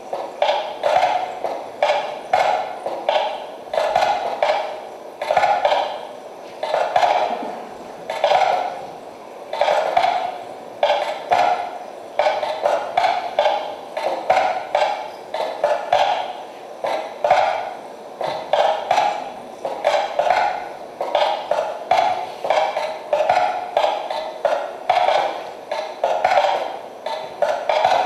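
Rapid, irregular percussive knocking that comes in quick clusters of strokes about once a second, each stroke carrying a short ringing tone.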